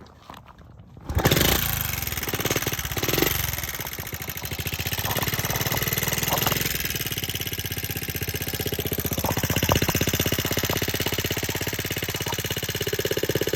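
Honda CT70's small four-stroke single-cylinder engine catching about a second in, revving briefly, then settling into a steady idle with a quick even putter.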